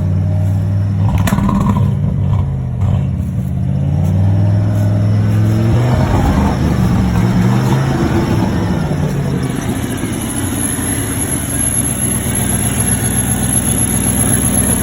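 1995 Ford F-150's 302 V8 running unevenly, its speed rising and falling several times before settling into a rougher, steadier run. The engine is struggling on a bad alternator and close to dying. A thin high whine comes in about two-thirds of the way through.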